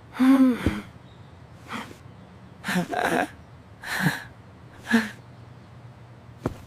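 A voice making a series of short breathy sounds, about five spread over several seconds. The first carries a short falling pitched tone; the rest are brief bursts of breath.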